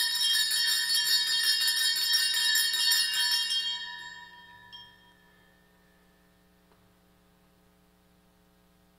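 A set of altar bells (sanctus bells) shaken rapidly at the elevation of the host after the consecration, a bright jangling ring of many tones. The shaking stops about three and a half seconds in and the ringing fades away over the next second or so.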